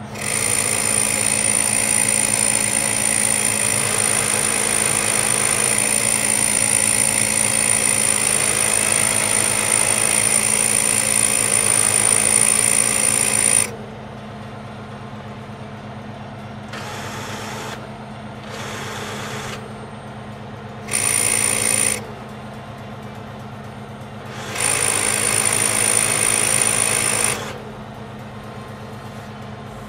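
HydraCHEM HC180 truck-mounted hydraulic pump and compressor unit running with a steady low hum, while a loud high-pitched whine cuts in as its control lever is worked. The whine runs for about 13 seconds, stops suddenly, then comes back in shorter on-off bursts, one of about a second and one of nearly three seconds.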